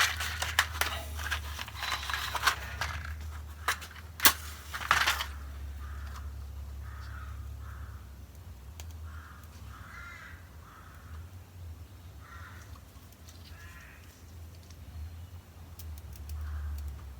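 Clicks and rustling of close handling for the first five seconds, then a crow cawing repeatedly, over a steady low hum.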